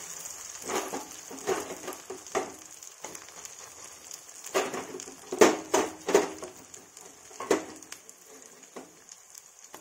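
Ground horse gram dal paste sizzling in hot oil in a kadhai as it is pressed down by hand, a steady high sizzle with a run of short, louder bursts, most of them clustered between about four and a half and seven and a half seconds in.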